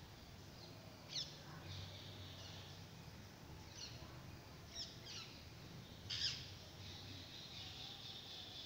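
Faint bird chirps: four or five short, high calls, each falling quickly in pitch, the loudest about six seconds in.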